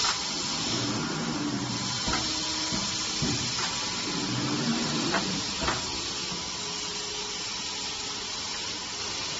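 Steady hiss of running workshop machinery, with a few faint clicks in the first six seconds.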